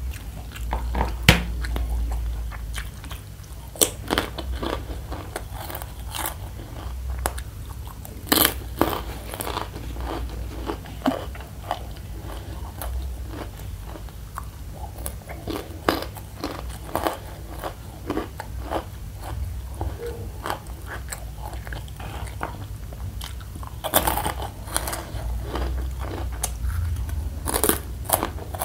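Close-miked mouth sounds of eating: crisp fried macaroni snack being bitten and chewed, with many irregular sharp crunches that come in clusters.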